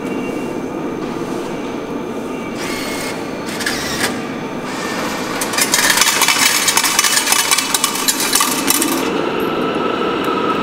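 Metro ticket vending machine at work: two short noisy bursts as the banknote is taken in, then about three seconds of dense, rapid clattering from its mechanism as it issues the ticket. A steady background hum runs underneath.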